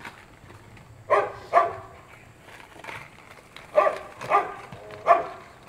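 A dog barking: five short barks, in two quick pairs and then one more.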